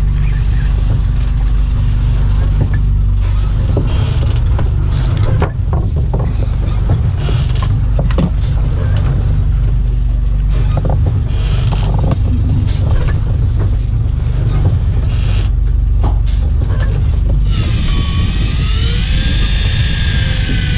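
A motor engine running steadily under way, with a deep, constant low rumble and irregular noise over it. A wavering, warbling tone with several pitch lines joins about 17 seconds in.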